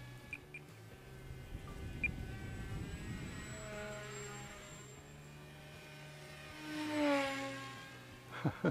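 Small RC model plane's motor and propeller whining as it flies past, the pitch falling as it goes by and loudest about seven seconds in. A few sharp knocks near the end.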